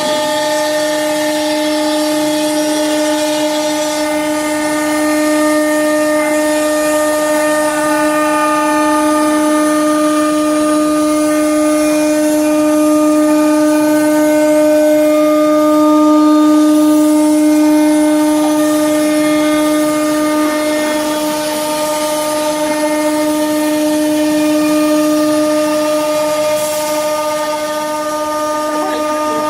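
The 9 kW HQD spindle of a CNC router running at a steady high speed: a constant whine with several overtones. There is a hiss on top, brighter in the first few seconds.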